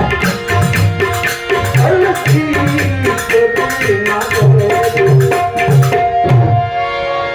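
Instrumental interlude of a devotional bhajan: a hand drum keeps a steady beat, about two strokes a second, under a held melody line. The drum stops about six and a half seconds in while the melody holds on.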